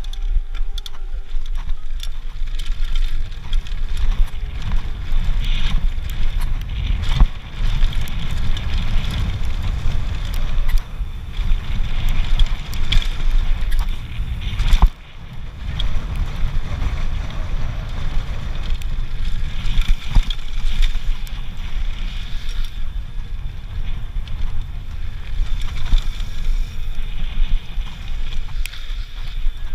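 Mountain bike running fast down a dirt trail: wind rushing over the camera's microphone with a steady low rumble, the tyres and bike rattling over the ground, and a couple of sharp knocks, one about seven seconds in and another about fifteen seconds in.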